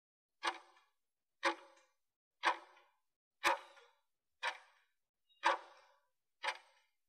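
Timer ticking sound effect: one sharp clock-like tick each second with a short fading tail, seven in all, marking the countdown of the last seconds of a workout interval.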